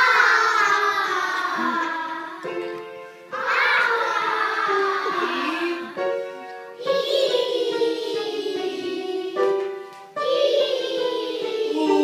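Group of young children singing a song together, in long phrases that slide downward in pitch, starting about every three and a half seconds, with short steady notes between them.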